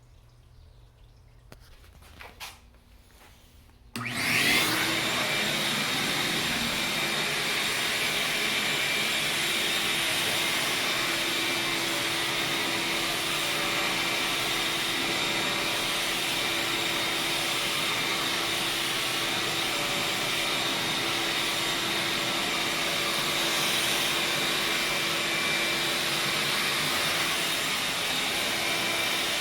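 Vacuum cleaner switched on about four seconds in, then running steadily with a high-pitched whine over its rushing airflow.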